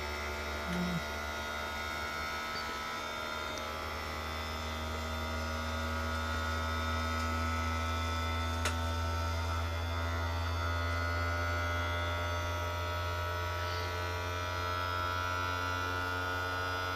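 Creality Ender 3 V3 Plus 3D printer running its startup self-check: a steady low electrical hum with several steady higher tones over it, swelling slightly midway, and one faint click.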